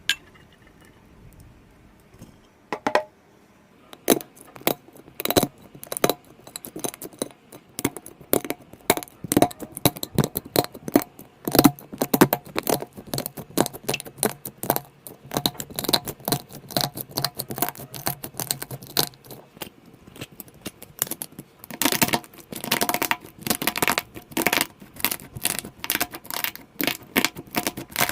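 Slime being squeezed and poked by hand, making a dense, irregular run of small sticky clicks and pops. It begins with a lone click, then another about three seconds in; steady clicking starts about a second later and is busiest near the end.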